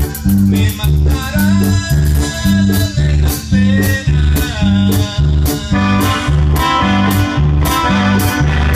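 Instrumental passage of Mexican tierra caliente band music: a bouncing bass line alternating between two notes under a steady beat, with a lead melody on top.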